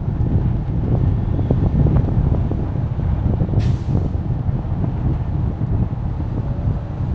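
Steady low rumble of a moving vehicle, with a short hiss about three and a half seconds in.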